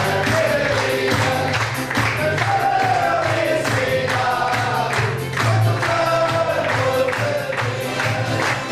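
A group of men singing a song together and clapping in time.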